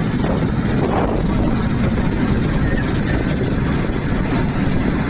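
A fishing boat's engine running steadily at cruising speed, mixed with the rush of water from the wake and hull.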